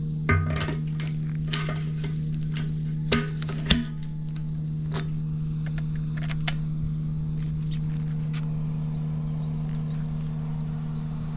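Suzuki Volty's single-cylinder engine idling with a steady, quiet hum and no abnormal noise, with a few sharp clicks and knocks in the first few seconds.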